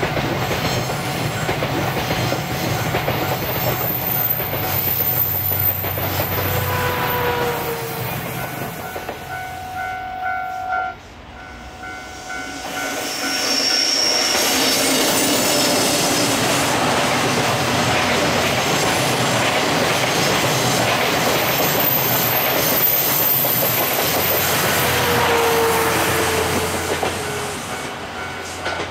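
Locomotive-hauled passenger train (EF65 electric locomotive with Salon Car Naniwa coaches) passing close by: a steady rumble of steel wheels with clickety-clack over the rail joints and a few brief squealing tones. The sound dips about ten seconds in, then the passing rumble comes back louder until it fades slightly at the end.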